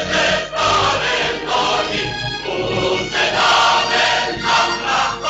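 Choir singing with instrumental accompaniment, a song from an early-1950s film soundtrack.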